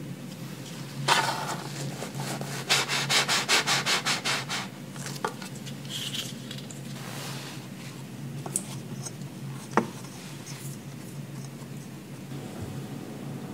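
Round fluted plastic cutter pressed and twisted through a slice of white sandwich bread, a rapid scratchy rasping of about eight strokes a second as it saws through the crust. A single light tick follows later.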